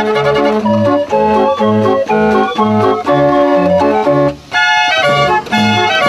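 Dutch street organ (draaiorgel) playing from a folded cardboard music book: a tune over an oom-pah accompaniment of bass notes alternating with chords. It breaks off briefly about four and a half seconds in, then goes on with a brighter, higher melody.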